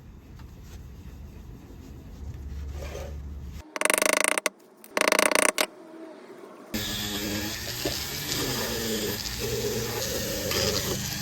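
Workshop tool sounds in short clips: two brief loud bursts of a power tool about four and five seconds in, then steady abrasive rubbing from about seven seconds.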